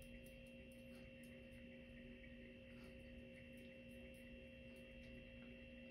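Near silence: a faint steady hum of a few pure tones over hiss, with faint scattered ticks.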